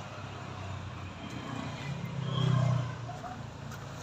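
A motor vehicle's engine humming low and steady, growing louder for about a second near the middle before easing off again.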